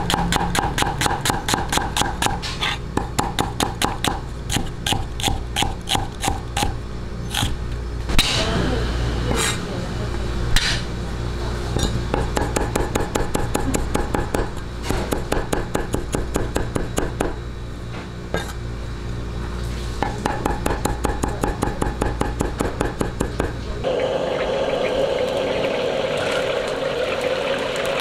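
Chinese cleaver chopping rapidly and evenly on a wooden chopping block, slicing onion and then mincing garlic, with a few harder knocks along the way. Near the end it gives way to the steady sizzle of chicken pieces deep-frying in hot oil in a wok.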